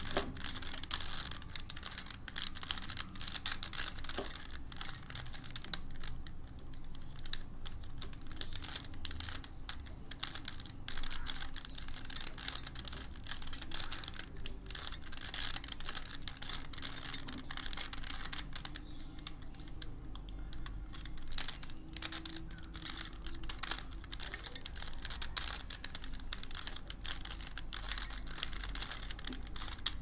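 Layers of a plastic stickerless 3x3 Rubik's cube being turned rapidly by hand: a continuous, irregular run of quick plastic clicks and clacks as the faces snap round.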